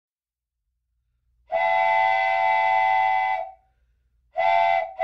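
Diesel locomotive air horn sounding a chord of several notes: one long blast of about two seconds, then a short blast, with another beginning at the very end.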